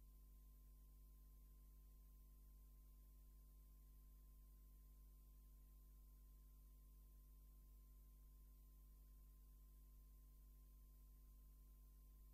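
Near silence: only a faint, steady low hum with a thin higher tone over light hiss, unchanging throughout.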